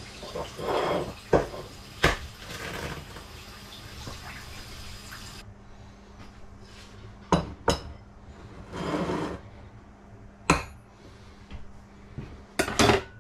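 Kitchen crockery being handled on a worktop: a handful of separate sharp knocks of a ceramic plate and bowl and eggs being set down, with a cluster of knocks near the end and a couple of short rustling noises in between.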